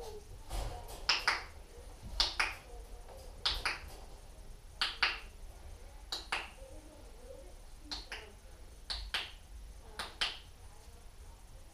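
A person's sharp finger snaps, mostly in quick pairs, repeated about every second and a half, about eight times in all.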